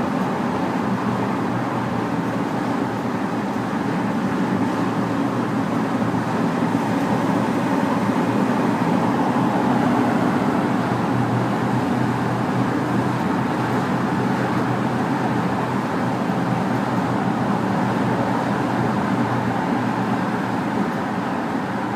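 Porsche Cayenne GTS engine and exhaust giving a steady, loud rumble inside a mountain tunnel, swelling a little around the middle and easing off again.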